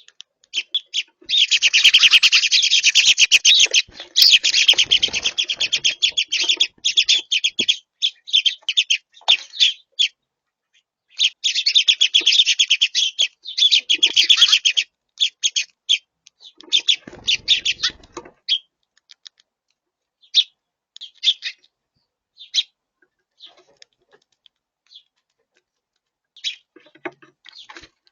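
Small songbirds chirping at a feeder: two long runs of rapid, dense chattering, then scattered single chirps.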